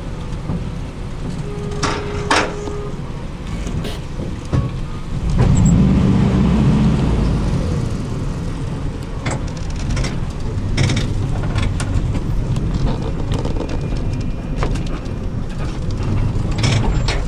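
Van running, heard from inside the cabin: a steady engine and road rumble with scattered knocks and rattles, growing louder about five seconds in.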